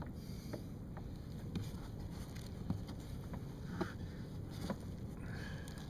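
Scattered light knocks and clicks of fishing gear being handled against a kayak, about five in all, over a steady low rush of wind and water.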